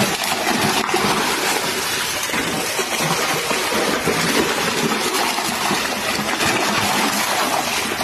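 Water splashing and churning steadily as large groupers in a sea net cage strike at whole fish thrown in as feed.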